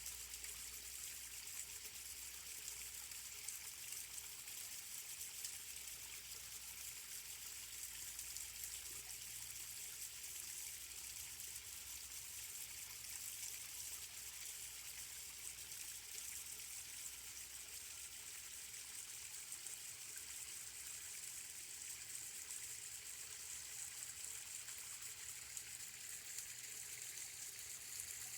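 Waterfall: a steady, even hiss of falling and splashing water.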